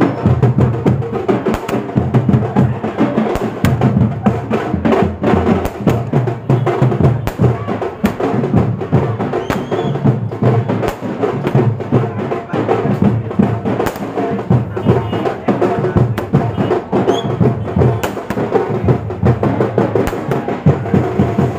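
Loud drum-driven music with many sharp cracks through it.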